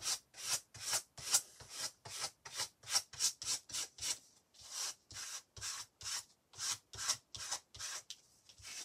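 Glue stick rubbed back and forth over a layer of paper, a steady run of rubbing strokes, about two to three a second.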